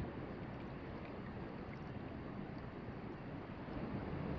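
Soft, steady outdoor noise of wind and gently moving shallow water.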